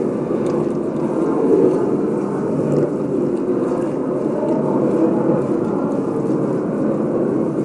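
A dense, steady sound-design drone: a dark, low-to-mid wash with faint crackling ticks above it.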